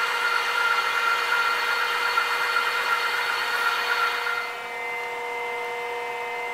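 Lathe boring bar cutting the bore of a 7075 aluminum ring, a steady cutting hiss with a high whine over the machine's running. About four and a half seconds in the cutting sound stops, leaving the lathe running with a steadier, quieter hum.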